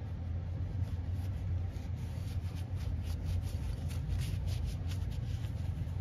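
Cloth rag rubbing over a pistol slide: a quick run of soft wiping strokes as excess carbon cleaner is wiped off, over a steady low hum.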